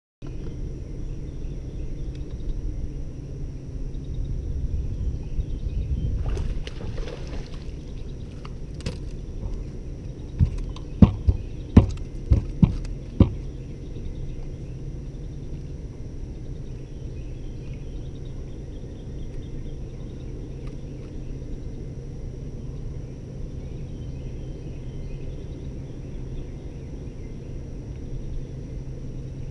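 Outdoor boat ambience: a steady low rumble with a thin steady high tone above it, and a run of about six sharp knocks between about ten and thirteen seconds in as gear is handled on the bass boat's front deck.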